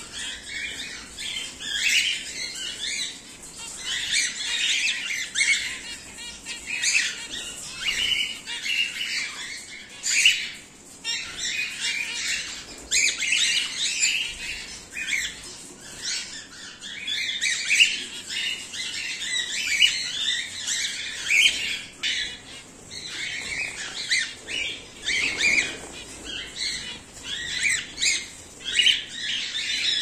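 A mixed aviary of cockatiels and zebra finches calling non-stop: many short overlapping chirps and squawks.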